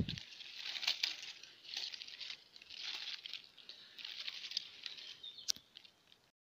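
Dry leaves, grass and twigs rustling and crackling in irregular bursts as a hand pushes leaf litter aside around a porcini mushroom, with a low thump at the very start and a sharp snap about five and a half seconds in. The sound stops abruptly near the end.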